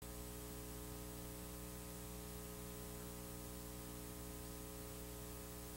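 Faint steady electrical hum, a stack of unchanging tones, with an even hiss over it and no other sound.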